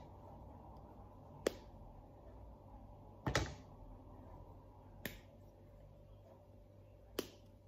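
Milk chocolate bar being snapped into squares by hand: four sharp snaps about two seconds apart, the second the loudest.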